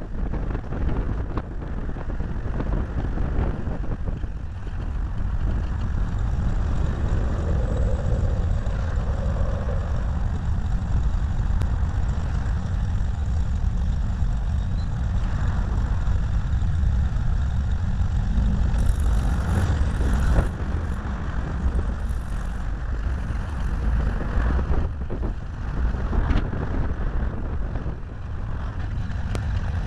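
Steady low rumble of road and wind noise picked up by a small camera taped to the front bonnet of a moving VW Beetle driving in traffic.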